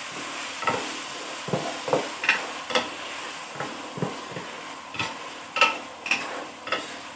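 Tomato and scrambled egg sizzling in a wok while a spatula stirs them, knocking and scraping against the pan a dozen or so times at an uneven pace. The steady sizzle slowly dies down.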